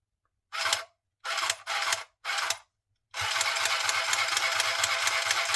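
Battery-powered mini sewing machine starting in four short bursts, then running steadily from about three seconds in, its needle stitching with a fast, even clatter.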